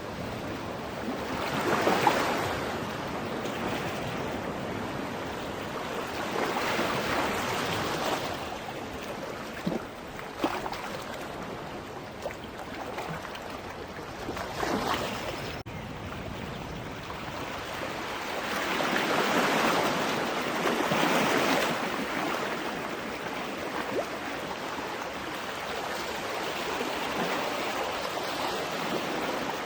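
Ocean waves breaking and washing on a beach: a continuous rush of surf that swells and fades every few seconds. A few brief sharper sounds come about ten seconds in.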